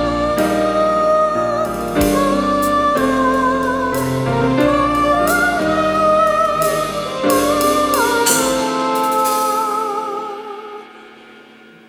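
A band playing the song's instrumental intro: a wavering lead melody over keyboard chords, a low bass and drum hits. It dies away over the last couple of seconds.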